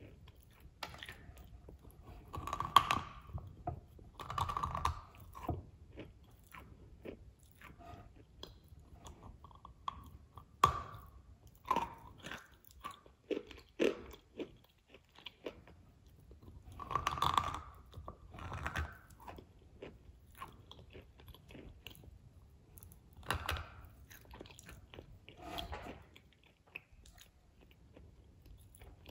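A person biting and chewing a soft, soaked cookie with whipped cream. The eating sounds come in several bursts with quieter mouth sounds between.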